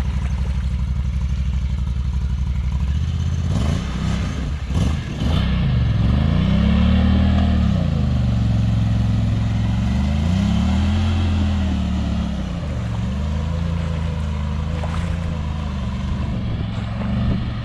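Side-by-side UTV engine running steadily at first, then revving up and down in long swells as the machine drives through shallow water, with the water churning and splashing around its wheels.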